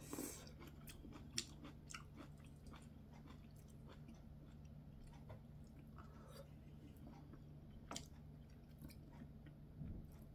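Faint close-up chewing and mouth sounds of a person eating a hot mouthful of braised kimchi and fish, with scattered soft clicks, a few slightly louder ticks and a soft low thump near the end. A steady low hum runs underneath.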